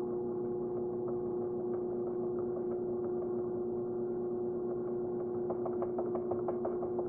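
Electric pottery wheel spinning fast, a steady motor hum, while wet clay is centered under cupped hands. A quick run of soft rhythmic ticks comes in near the end.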